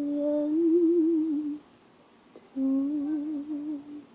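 Closing notes of a recorded blues song: a singer's voice holds a long, wordless, wavering note that stops about a second and a half in, then a second wavering note enters about a second later and ends just before the close.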